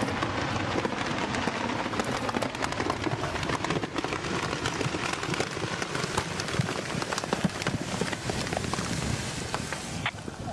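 Rock debris from a riverbed blast raining down around the camera: a dense, steady crackle of many small hits, easing off near the end.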